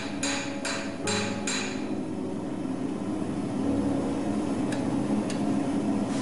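Blacksmith's hand hammer striking a red-hot rail spike blade on the anvil: four ringing blows at about two and a half a second, then the hammering stops about two seconds in, with two light taps later.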